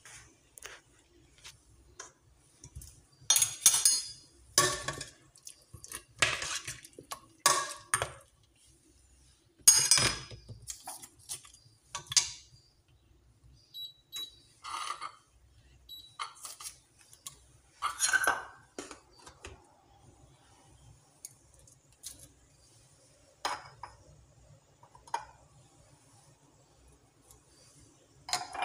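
Metal kitchenware clinking and clattering against a stainless-steel cooking pot in short, irregular knocks and scrapes, some with a brief metallic ring.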